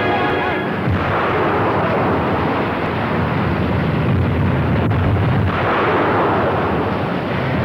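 Artillery fire and shell explosions: a dense, continuous rumble with crackle and one sharp crack about five seconds in, taking over from music that ends under a second in.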